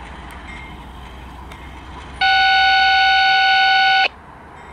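Diesel locomotive's five-chime air horn sounding one steady blast of about two seconds, starting about two seconds in and cut off sharply, over the low rumble of the slowly approaching GE ES44DC.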